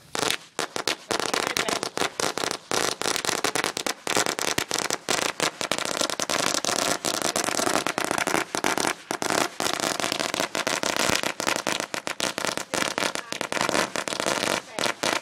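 A long string of firecrackers hung from a pole going off, a rapid unbroken crackle of bangs that begins a moment in.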